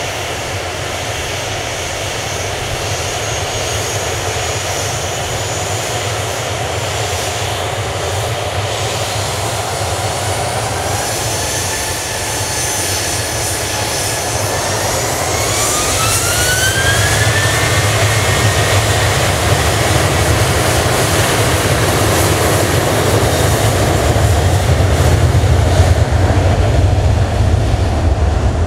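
Boeing 737-800's CFM56-7B turbofans running at taxi power with a steady whine. About halfway through, the whine climbs in pitch and a deep rumble builds louder toward the end as the engines spool up for the takeoff roll.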